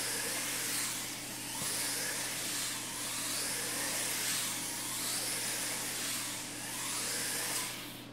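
Small electric RC race car's motor and gears whining at speed, the pitch rising and falling in repeated swells as it accelerates down the straights and slows for the turns. The whine dies away near the end as the car coasts to a stop.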